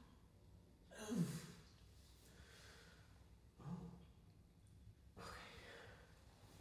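A man's faint sighs and heavy breaths: two short sighs falling in pitch, about a second in and near four seconds, then a longer breath out near the end.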